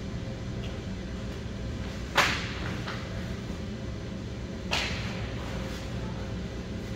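Hockey play: two sharp cracks of stick and puck about two and a half seconds apart, the first the louder and ringing briefly, over a steady low hum.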